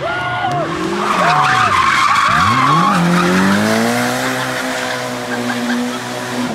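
Toyota AE86 Corolla coupe drifting: the engine revs swing up and down with the throttle, dip about two seconds in, then climb and hold high, over tyre squeal that is loudest in the first half.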